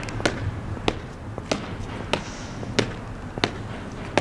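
Boot heels striking concrete at an even marching pace, one sharp step about every 0.6 s.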